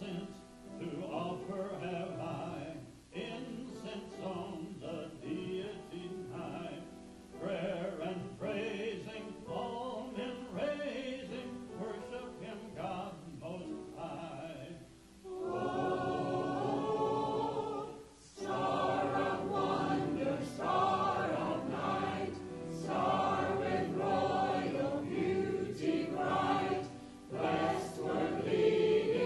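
A church choir of men and women singing a Christmas hymn, growing fuller and louder about halfway through.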